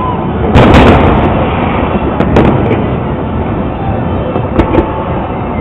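Aerial fireworks shells bursting in a professional display, with a continuous rumble between the booms. A sharp boom comes about half a second in, another near the middle, and two close together near the end.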